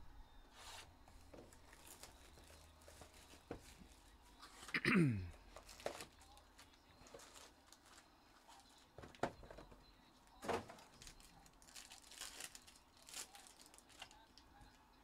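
Trading card packaging being torn open and crinkled: scattered crackles and small handling clicks of plastic wrap and pack wrappers. About five seconds in comes one louder squeak that slides down in pitch.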